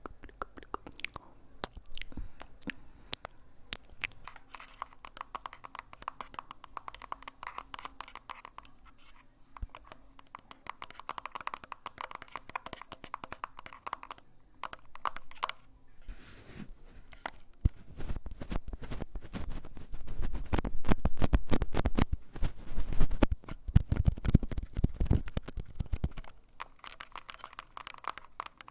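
Close-miked ASMR crunching and crackling: a dense run of small clicks and crackles, which grows louder and heavier from about a second after the halfway point until near the end.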